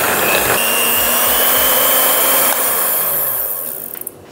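Electric hand mixer running, its beaters whirring through thin cake batter in a glass bowl with a steady motor hum. It winds down and stops near the end.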